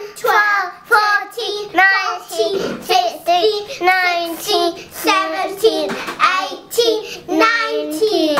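A young girl counting aloud from ten toward twenty in a sing-song chant, about two syllables a second.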